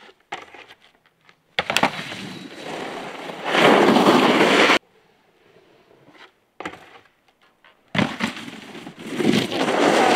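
Snowboard landing hard on packed snow, then the board scraping and sliding across the snow on the ride-out. The first slide stops abruptly, and a second landing about eight seconds in is followed by another long slide.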